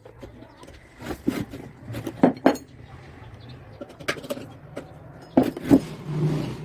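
Metal parts of a washing-machine motor clinking and knocking as it is reassembled after a bearing change: about six sharp, irregular clinks with a short ring.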